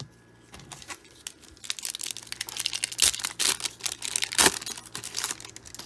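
Foil wrapper of a 1995 Upper Deck SP baseball card pack being torn open and crinkled by hand: an irregular crackling rustle that starts about a second and a half in, loudest around three and four and a half seconds in.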